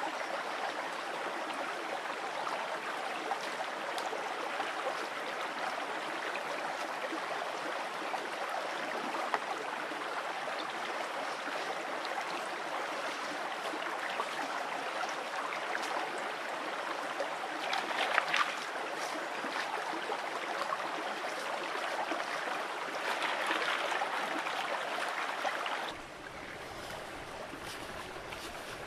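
Shallow woodland stream running steadily over rocks, with a couple of brief louder moments about 18 and 24 seconds in. About 26 seconds in the stream sound drops abruptly to a quieter background.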